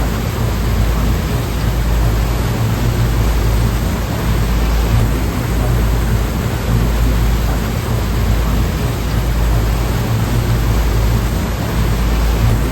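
Ocean surf washing continuously: a dense, even hiss with a heavy low rumble underneath, with no single wave standing out.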